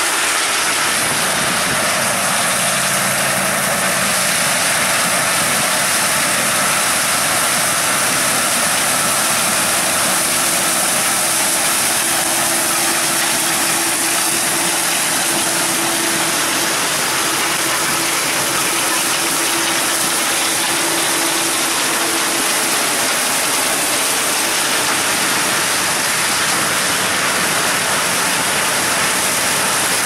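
Claas Lexion 650 combine harvester running steadily while cutting and threshing maize with its corn header: a continuous mechanical clatter and rush, with a faint steady whine through the middle stretch.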